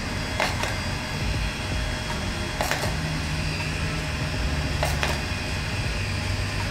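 Handheld at-home laser hair removal device running with a steady fan hum, giving a few sharp clicks as it flashes against the skin.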